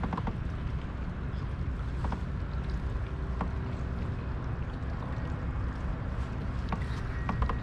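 Steady low rumble of wind and water around a fishing kayak on open water, with a few faint clicks.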